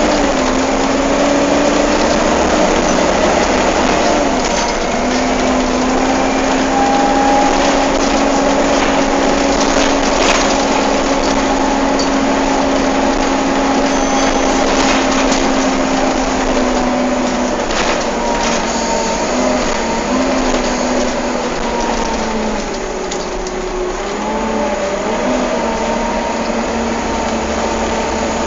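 Volvo B7TL double-decker bus's engine cooling fan running, a loud steady whining note over the diesel engine, its pitch sagging and wavering a little in the second half.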